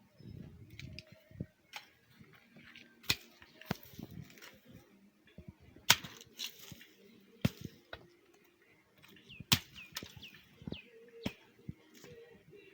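Sharp knocks or strikes every one to two seconds, irregularly spaced, with low rustling and thudding between them. A few short, falling bird chirps come in about three-quarters of the way through.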